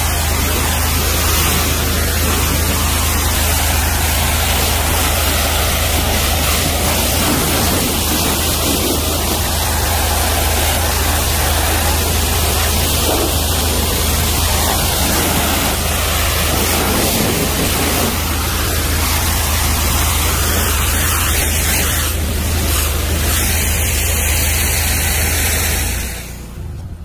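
500-bar high-pressure washer running: a steady low hum under the loud, even hiss of its water jet blasting a car's bodywork. The spray and hum cut off about a second before the end, leaving a much quieter background.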